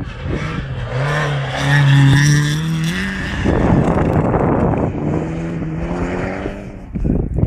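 Rally cars on a snow stage: one car's engine revving hard with its pitch climbing, loudest about two seconds in, then a rough spell of noise and a second engine running at a steadier high pitch.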